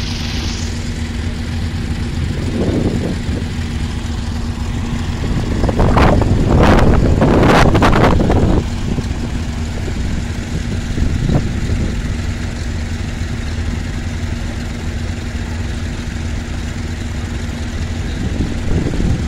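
Vintage tractor engines running steadily at idle, a constant low hum. From about six to eight and a half seconds in, a louder stretch of rough noise with a few sharp knocks comes over the top.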